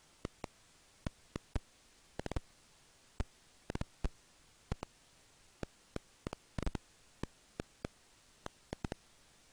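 Serotine bats clicking at their roost: irregular sharp clicks, some single and some in quick clusters of two to four.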